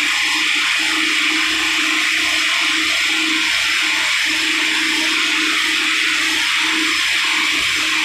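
Steady loud rushing noise of running ice plant machinery, with a low hum that keeps fading in and out.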